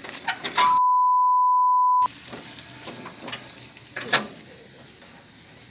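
A steady, single-pitched bleep tone lasting about a second and a half, with the rest of the sound cut out beneath it, as when speech is censored. Faint background noise follows, with one sharp knock about four seconds in.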